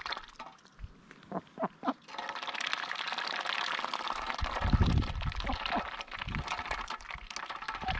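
Ducks dabbling in a shallow metal tray of water, their bills splashing and slurping through the water and greens in a dense, crackly wet chatter that starts about two seconds in, after a quieter opening with a few short soft sounds. A dull low knock sounds about five seconds in.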